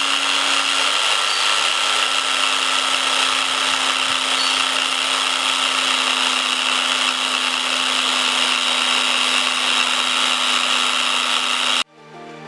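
Electric power tool running at a steady speed, a constant hum under an even whirring noise, which cuts off suddenly near the end and gives way to music.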